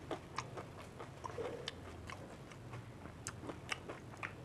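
Mouth-close chewing and crunching of fuchka, crisp hollow puri shells filled with spiced water, and raw green chilies: an irregular run of sharp crackles from the shells breaking, with wet chewing between them.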